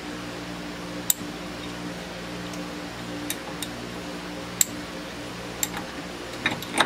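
Sharp metallic clicks of a hex key against the bolts and steel backing plate on a mini lathe spindle as the bolts are worked loose, a few seconds apart, with a quicker cluster of clinks near the end as the plate is handled. A steady low hum runs underneath.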